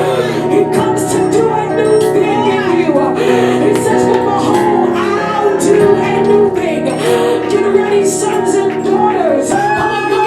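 Live worship music: held chords and cymbal strokes, with a voice singing over them.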